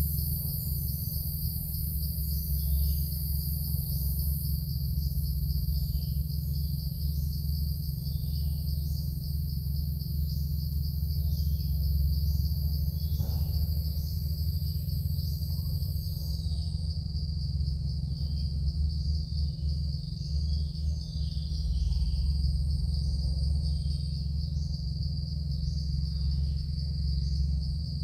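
Night insects chirring steadily in a fast, pulsing high-pitched trill, over a steady low hum.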